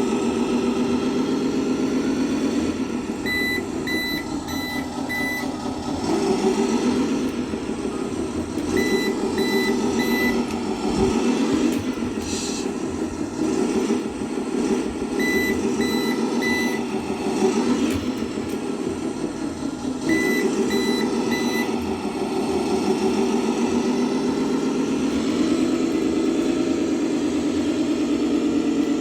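An RC truck's electronic sound card playing a simulated truck engine running, with the note rising and falling in places. Sets of three or four short reversing beeps sound four times, and a short hiss comes about twelve seconds in.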